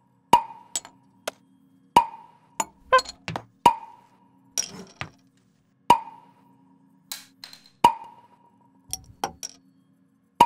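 Slow, steady knocks on a wooden temple block (moktak), about one every two seconds, each with a short ringing note. Lighter clinks and taps fall between them over a faint low hum.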